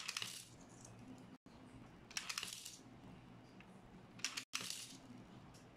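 Coins dropped one at a time into a wh Münzprüfer EMP500 coin acceptor, three in all, each clattering through the mechanism and landing with a short metallic jingle in the tin of coins below. The acceptor is being bench-tested after repair.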